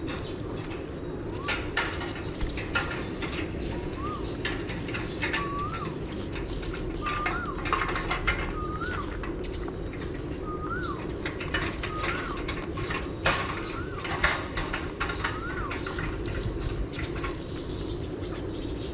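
A bird calling over and over, a short whistled note that rises and falls, repeated roughly once a second through the middle of the stretch, among scattered sharp chirps and clicks over a steady low hum.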